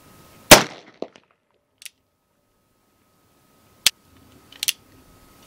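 Cimarron 1860 Army Richards Transition Type II conversion revolver firing .45 Long Colt: one loud shot about half a second in, with a trailing echo, then a second, sharper and shorter report near four seconds in, followed by two quick light metallic clicks.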